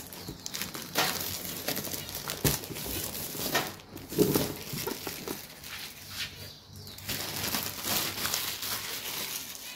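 Clear plastic shrink-wrap being peeled and torn off a cardboard box, then crumpled into a ball in the hand: continuous crinkling and crackling with many sharp snaps.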